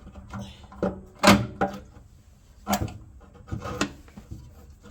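A fuel tank being handled and fitted onto a small petrol engine: a string of irregular knocks and clunks, about half a dozen, the loudest about a second in.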